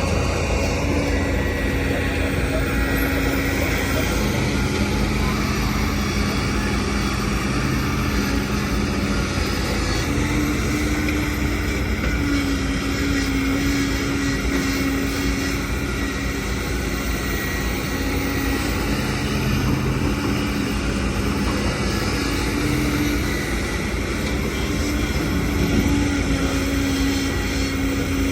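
Diesel engines of a working Hitachi excavator and dump trucks running steadily, with the engine note shifting up and down in pitch as they work.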